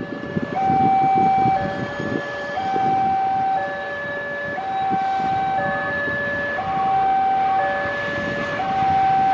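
Railway level crossing alarm sounding its alternating two-tone warning, a low tone then a higher tone, each held about a second, over the low rumble of a diesel locomotive hauling a passenger train past.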